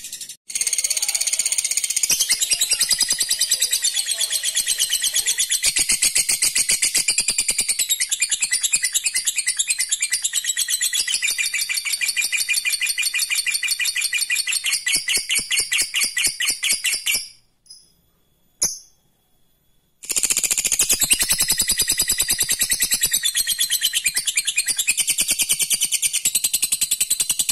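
Lovebird 'ngekek': a long, rapid, high-pitched chattering trill. About seventeen seconds in it breaks off into near silence with a couple of short chirps, then resumes about three seconds later.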